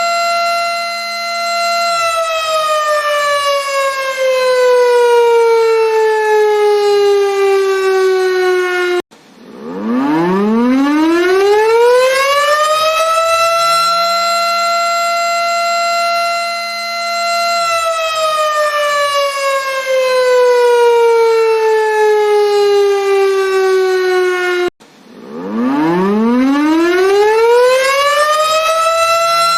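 Air-raid warning siren (war siren) wailing: the pitch climbs over about three seconds, holds steady for several seconds, then slowly sinks over about seven seconds. It breaks off suddenly twice and starts climbing again each time, one cycle about every 16 seconds.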